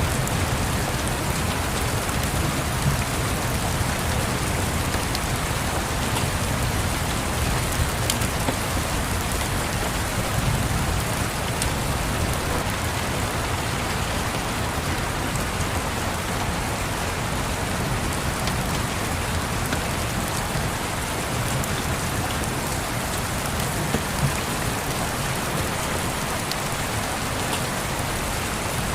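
Steady rain falling, with a low rumble underneath and a few faint scattered clicks.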